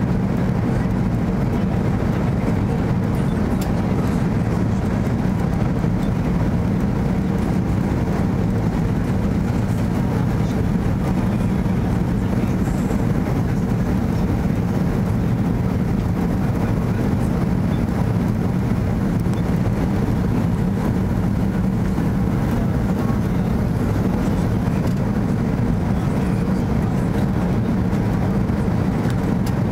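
Steady cabin noise of an Airbus A330 on approach: an even, low rumble of engines and rushing air, heard inside the cabin, with no change in level.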